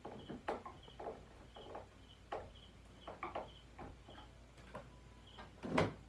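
Irregular light clicks and knocks of hands working a plywood shelf on its metal bracket, with one louder knock near the end. A faint high chirp repeats about twice a second in the background.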